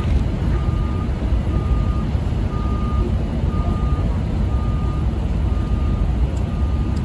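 A vehicle's reversing alarm beeping steadily, about once a second, over a loud low rumble.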